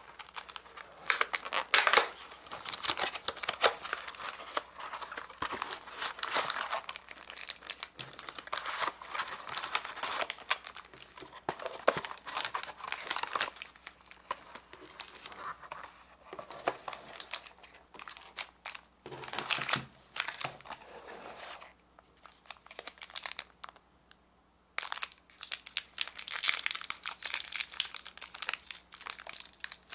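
Plastic snack wrappers of Bisco biscuit packets and their paperboard box crinkling as they are handled, in close irregular bursts with a quiet pause of a couple of seconds about three-quarters of the way through. Near the end a wrapper is torn open.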